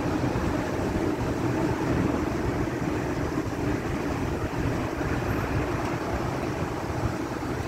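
Diesel-electric freight locomotives running, a steady low rumble.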